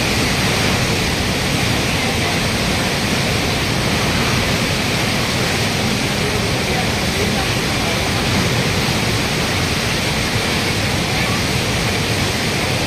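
A monsoon-flooded river in spate rushing past in a steady, loud torrent of churning water.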